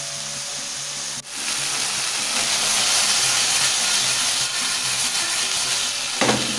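Chicken breast pieces sizzling as they fry in oil in a skillet: a steady hiss that drops out briefly about a second in, then comes back louder.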